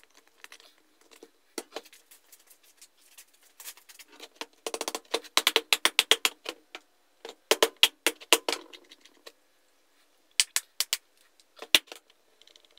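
Rapid runs of light clicks and rattles from the parts of an Elna SZ 120/125 bench grinder's motor housing being fitted together and closed up by hand. The clicks come in quick, evenly spaced trains, loudest in the middle, with a shorter run near the end.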